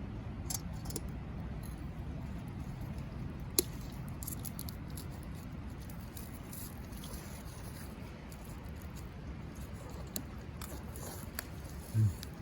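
Campfire crackling: scattered faint, sharp pops over a low steady rumble, with one louder snap about three and a half seconds in and a dull low thump near the end.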